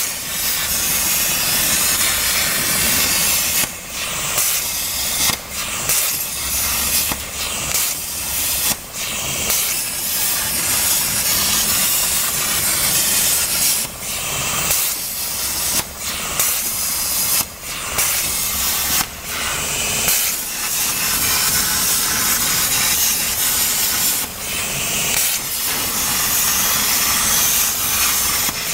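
CNC plasma cutter's arc and air jet hissing steadily as the torch cuts 2 mm galvanized sheet on a water-cooled table. The hiss breaks off for a moment about a dozen times, as the arc stops and re-strikes between cut segments.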